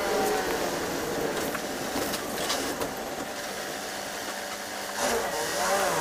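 City bus heard from inside the cabin while driving: engine and road noise with a few rattling clicks. The engine's pitch falls at the start, then rises as it accelerates about five seconds in.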